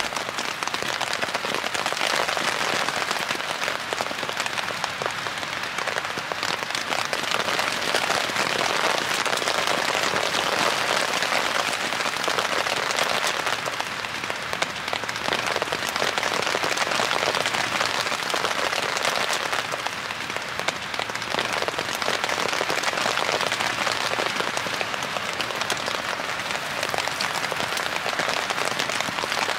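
Steady rain pattering on a tarp: a dense hiss of drops that swells and eases slightly over time.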